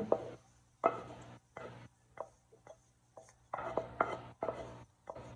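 Wooden spatula scraping sautéed onions out of a frying pan into a glass bowl, in a string of short irregular scrapes and sharp knocks.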